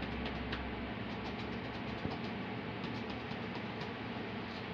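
Cupped hands patting rhythmically on a patient's back through a towel: chest percussion (clapping) to loosen airway secretions, soft pats about three a second over steady room noise.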